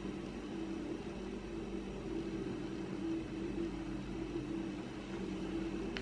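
Steady low hum of a running appliance in a small room, with a faint even hiss and no change throughout.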